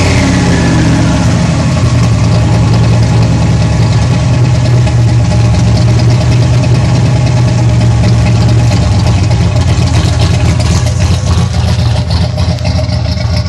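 Turbocharged 1995 Mustang Cobra V8 idling steadily after a rev, with a deep, even low hum.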